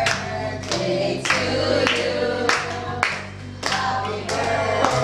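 A group of people singing along to music with a steady beat, clapping their hands in time.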